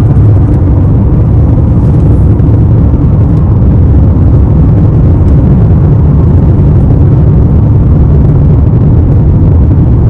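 A car driving at steady speed: a loud, even low rumble of road and engine noise.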